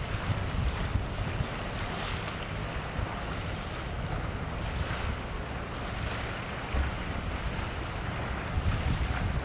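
Wind buffeting the microphone in irregular gusts over a steady wash of small waves on the shore.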